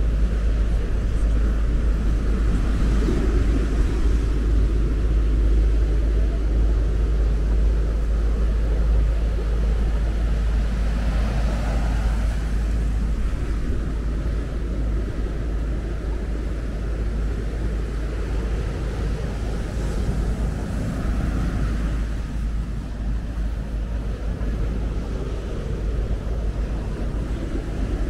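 Strong wind buffeting the microphone in a heavy low rumble, over a steady rush of breaking surf that swells a few times.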